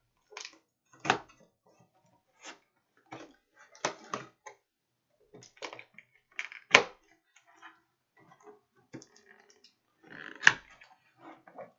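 A folding knife slicing through the taped seams of a cardboard mailing box, heard as irregular short scrapes and sharp knocks as the box is cut and its flaps are handled. The two loudest knocks come about seven seconds in and near the end.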